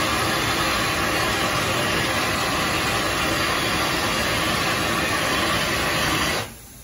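Steam locomotive letting off steam in a steady, loud hiss that cuts off suddenly near the end.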